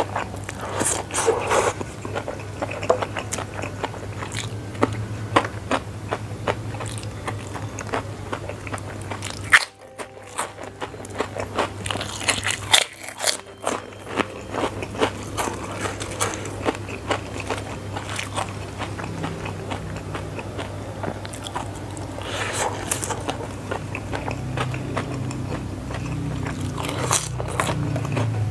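Close-miked eating of fried flat rice noodles: chewing and biting mouth sounds, with the wooden spoon scraping noodles off the banana leaf. The sound drops out briefly twice, about ten and thirteen seconds in.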